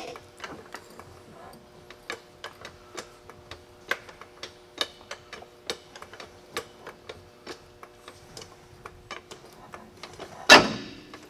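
Light metallic clicks at about two a second during work on a pickup's front suspension with a floor jack under it, then one loud clunk near the end.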